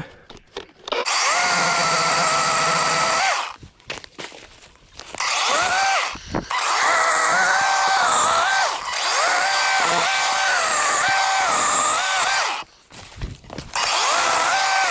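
DeWalt 20-volt cordless chainsaw with a 12-inch bar cutting branches off a felled tree. Its electric motor whines in several bursts as the trigger is squeezed and released, the pitch dipping as the chain bites into the wood, with short pauses between cuts.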